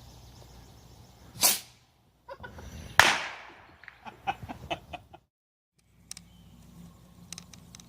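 A short hissing burst, then a single sharp crack that rings out for about a second, followed by a few short chicken clucks.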